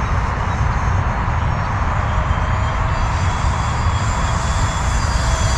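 E-flite F-15 Eagle model jet flying past, its twin electric ducted fans giving a steady rushing whine with faint high tones over a low rumble.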